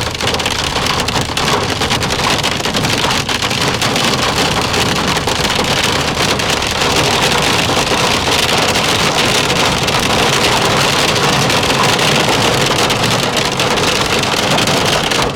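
Hail hitting a moving car in a loud, dense, continuous clatter, heard from inside the cabin, with the car's road noise underneath.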